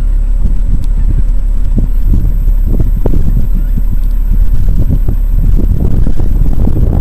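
Wind buffeting the microphone: a loud, uneven low rumble with rapid flutter.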